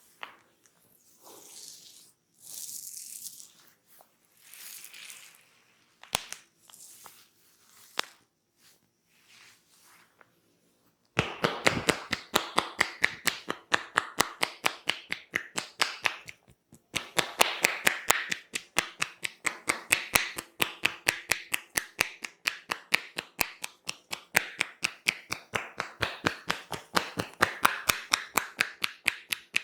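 Soft rustling strokes of hands working over hair and scalp. About eleven seconds in, this gives way to rapid, even hand taps of a tapping massage, with one short break partway.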